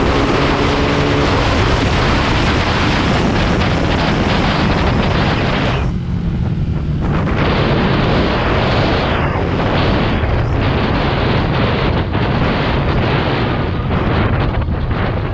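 Wind rushing hard over the microphone while riding a Honda RS150/Sonic 150 motorcycle, its single-cylinder engine running underneath. The rush thins out briefly about six seconds in.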